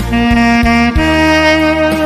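Tenor saxophone playing a slow melody over a backing accompaniment: one held note, then a higher held note starting about a second in.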